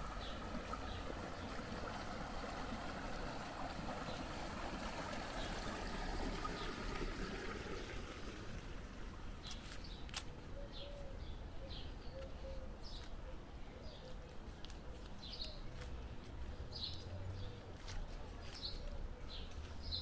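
Water running in a stream, steady for the first eight seconds or so and then fading. From there on, small birds chirp in short, repeated notes.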